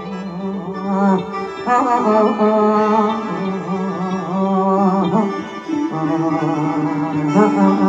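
Live Isan mor lam music through a stage PA: long, wavering melodic notes over a steady lower note, continuing without a break.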